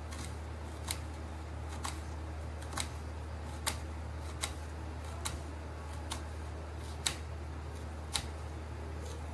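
Kitchen knife slicing a red onion on a stone surface, each cut ending in a sharp tap of the blade on the stone, about once a second.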